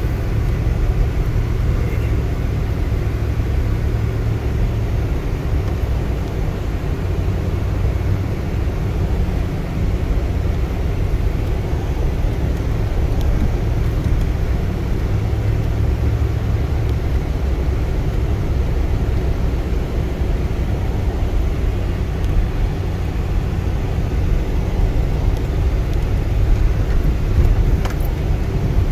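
Off-road vehicle climbing slowly up a steep, rocky dirt track: a steady low engine and road rumble heard from inside the cab.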